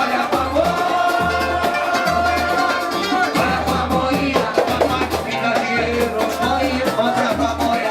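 Live samba band music: a melody line with long held notes over a steady, evenly pulsing bass beat.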